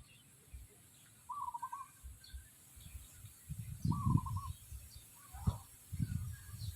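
Chickens calling: two short wavering trills about two and a half seconds apart. Dull low thumps in the second half are louder than the calls.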